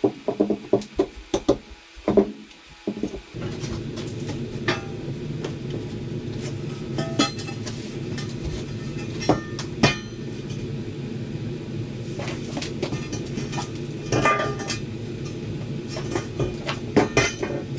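Knocks and metallic clanks from a steel I-beam being handled and set against a concrete-block basement wall. There is a quick run of knocks in the first three seconds, then single clanks every few seconds over a steady low hum.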